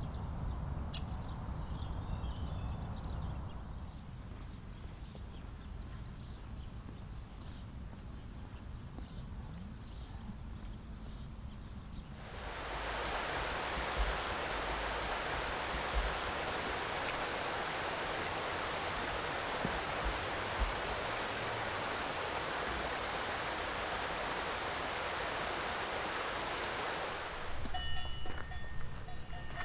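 Rushing water of a mountain stream or waterfall, a steady hiss that cuts in suddenly about twelve seconds in and stops just as suddenly near the end. Before it, a quieter stretch of low rumble with faint high chirps.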